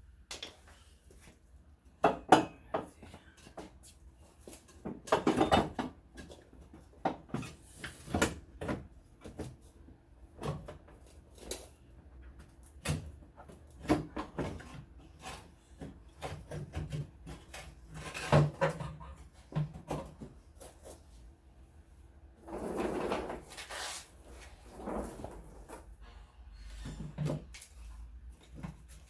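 Irregular knocks, clicks and scrapes of parts being handled while a fuel filler neck and its removable plastic piece are worked loose by hand. A longer scraping rustle comes late on.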